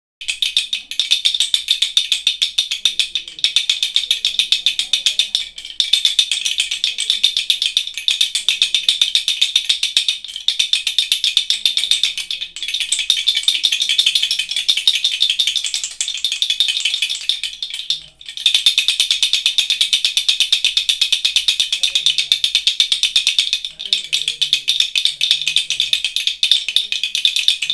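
Baby rattle shaken rapidly and continuously, a dense, bright rattling that stops briefly about six times, the clearest gap a little past the middle.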